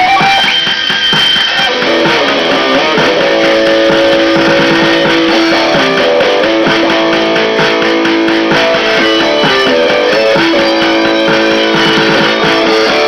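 Solid-body Stratocaster-style electric guitar played amplified: picked runs with long held notes that come back in repeating phrases.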